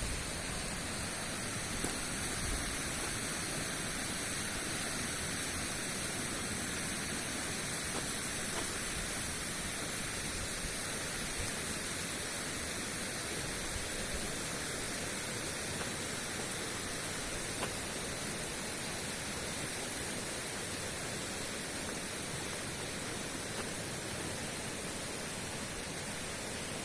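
Fast-flowing river running steadily, a continuous rush of water.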